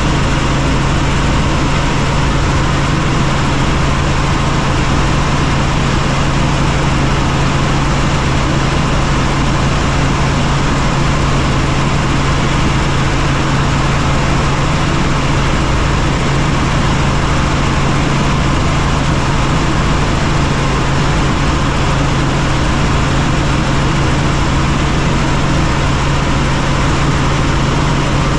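Helicopter in flight: a loud, unchanging drone of engine and rotor noise with a strong steady low hum.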